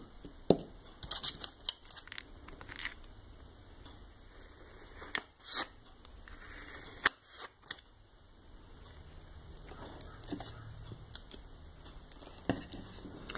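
Scattered small clicks, taps and short scrapes of nail-stamping tools being handled: a stamper, scraper and stamping plate picked up and worked.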